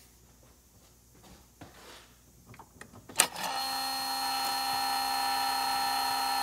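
A sharp click about three seconds in, then the electronic throttle body actuator of a Mercedes-Benz R129 SL600's V12 energises with a steady high-pitched whining buzz, a horrible noise. Its nylon drive gear is bent and the owner suspects a bad throttle body.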